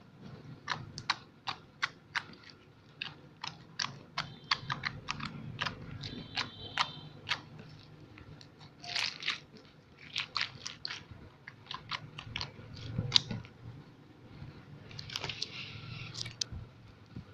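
Slime being pressed and poked, giving off sharp, irregular clicks and pops, with longer squelches about nine and fifteen seconds in.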